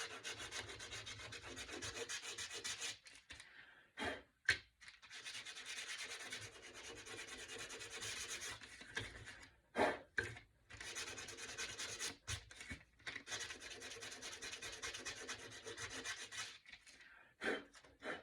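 Sandpaper rubbed by hand along the edges of a painted wooden cutout, in several long passes of quick scratchy strokes with short pauses between, and a few light knocks during the pauses.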